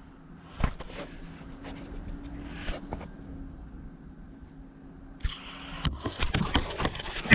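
Worn timing belt tensioner pulley bearing from a Mazda Miata turned by hand right at the microphone: a faint rough rolling with a few clicks as it turns, the sound of a bearing that has developed play and is worn out. From about five seconds in, louder clattering and rustling from handling, ending in a sharp knock.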